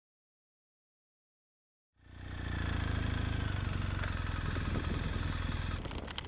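Silence for about two seconds, then a motorcycle engine running steadily under way. It drops a little and turns rougher near the end, with a few clicks.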